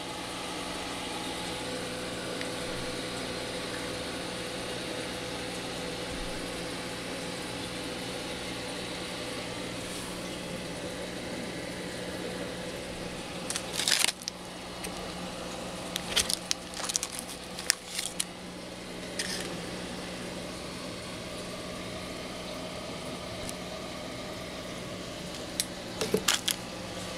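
A steady mechanical hum and hiss with a constant pitched drone throughout. Brief clusters of sharp crackling and clicking come about halfway through, again a few seconds later, and near the end, as of plastic packaging or the camera being handled.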